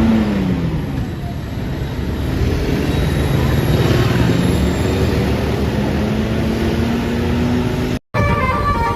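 A large bus engine running. Its pitch drops in the first second, then climbs slowly as it pulls off. After a cut near the end, a multi-tone telolet horn starts a quick stepping tune.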